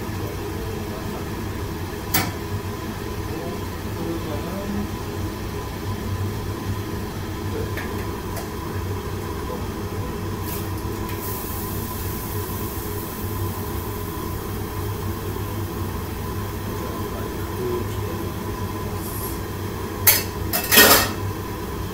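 Steady roar of a commercial wok range burning under a wok of boiling jjamppong broth. A few metal clinks of pots and utensils come about two seconds in and twice near the end.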